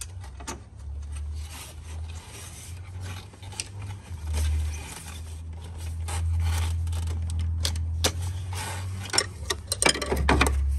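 Hand tools and parts being handled around a car's engine bay: irregular clicks, clinks and scrapes over a low rumble, with a quick cluster of knocks near the end.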